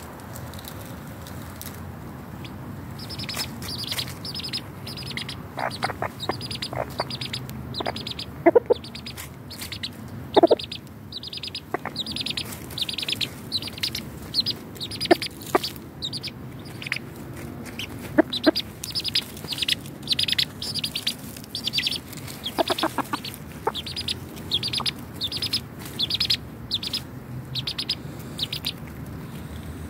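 Chickens clucking softly with a few short calls while dust bathing, over a long run of short high chirps repeating about twice a second from a few seconds in.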